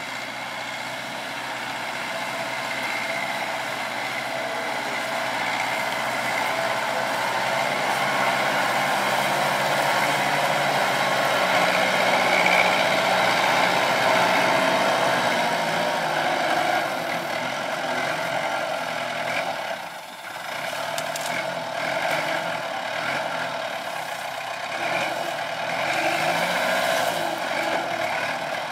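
Kubota tractor's diesel engine running under load while its sugarcane grab loader carries and lifts a bundle of cane. The engine grows louder through the first half, dips briefly about two-thirds of the way through, then rises and falls.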